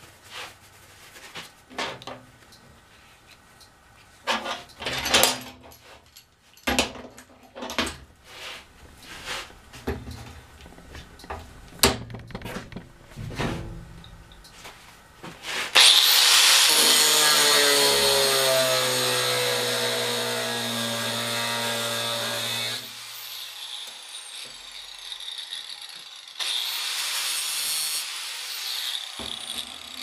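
Handheld electric angle grinder cutting through a steel bolt. It starts suddenly about halfway through with a loud high whine that sinks slowly in pitch as it bites, then stops and spins down, followed by a second shorter run near the end. Before it, scattered knocks and clanks of tools and metal parts being handled on a steel bench.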